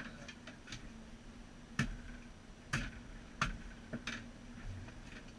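Irregular sharp clicks and knocks from gear being handled in an aluminium boat, four louder ones in the middle, over a faint steady low hum.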